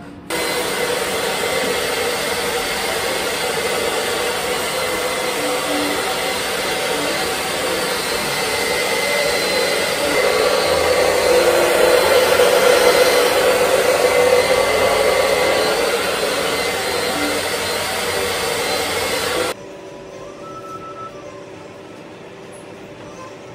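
Handheld hair dryer running steadily: a loud rush of air with a steady hum in it. It switches on just after the start, grows a little louder in the middle, and cuts off suddenly about four seconds before the end.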